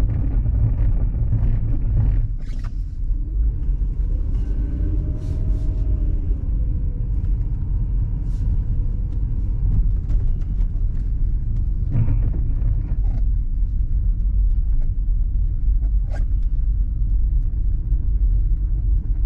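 Car driving over an icy, snow-covered road: a steady low rumble of engine and tyres, with a few faint clicks.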